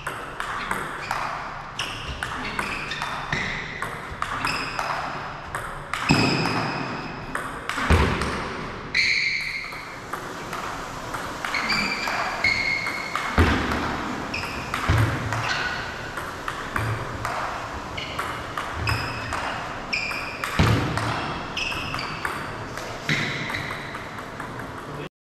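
Table tennis rally: a string of sharp clicks as the ball is struck by the bats and bounces on the table, heavy topspin strokes answered by long-range chops from a Curl P4 long-pips rubber. A few heavier thuds stand out, along with some short high ringing tones.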